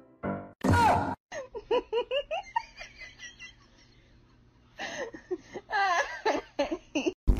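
A person laughing in quick high-pitched bursts, in two bouts with a short pause between them, after a brief loud squeal about a second in.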